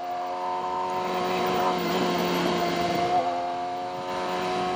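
BMW S1000RR inline-four engine running steadily at cruising speed on the road, with wind and road noise. The engine note shifts slightly about three seconds in.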